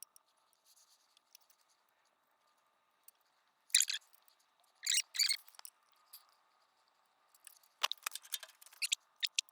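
Nylon zip ties being pulled tight around motorcycle wiring: a few short, rasping ratchet zips, about four and five seconds in and again in a quick cluster near the end.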